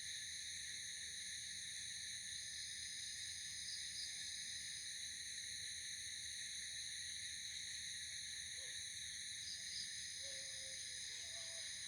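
Night insect chorus, a continuous high steady trilling. A few faint short low calls come in near the end.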